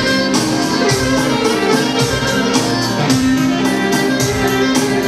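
Southern Albanian folk dance music (a valle) playing loudly, melody instruments over a steady beat.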